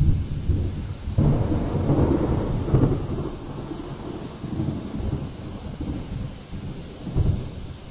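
Thunderstorm noise: a heavy low rumble over steady rain, swelling sharply about a second in and again near the end.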